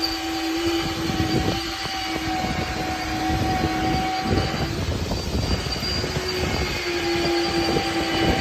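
A motor running with a steady whine, with rough rumbling and scraping over it. The whine fades out about halfway through and comes back near the end.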